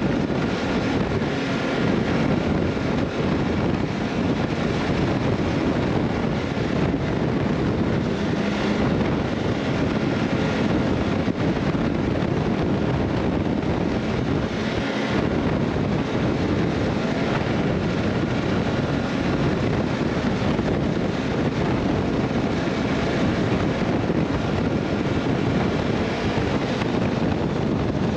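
Steady wind rush over the microphone while riding, mixed with a continuous rumble from the moving vehicle and its tyres on the road.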